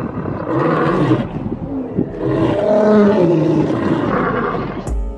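Two male lions roaring together in long, overlapping calls, cut off abruptly near the end.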